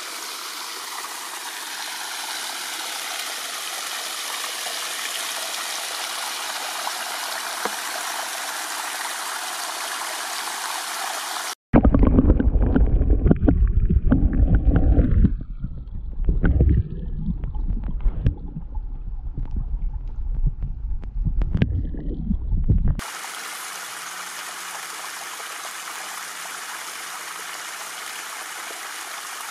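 Steady sound of flowing stream water. About a third of the way in the audio cuts abruptly to loud, irregular low rumbling and knocks on the microphone for about eleven seconds, then the steady stream sound returns.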